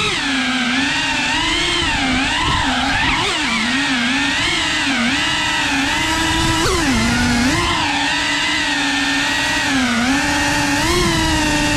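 FPV quadcopter's motors and propellers whining, heard from the onboard camera, the pitch rising and dipping constantly as the throttle changes.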